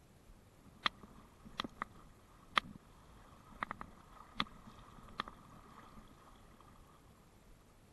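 Faint river water flowing and lapping, with about eight sharp, irregular clicks and taps scattered through the first five seconds.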